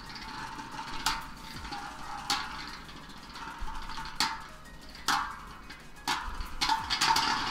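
Doomscizor and Cognite Beyblade Burst tops spinning with a steady whir on a plastic sled, clacking sharply against each other about half a dozen times, several times in quick succession near the end.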